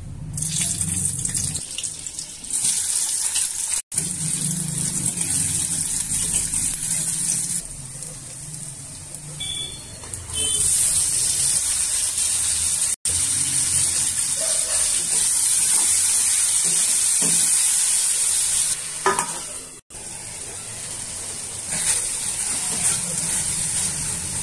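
Green chillies and then chopped tomatoes sizzling in hot oil in an iron kadai: a steady hiss that breaks off sharply a few times, with a spatula stirring the pan near the end.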